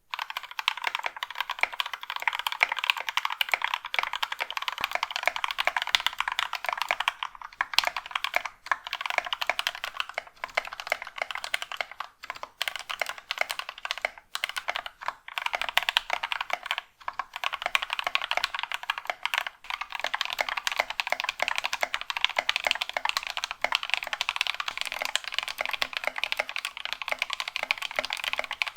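Fast, continuous typing on a mechanical keyboard fitted with linear Gateron Yellow-type switches that have been lubed with Krytox 205g0 and filmed, with a few brief pauses in the keystrokes.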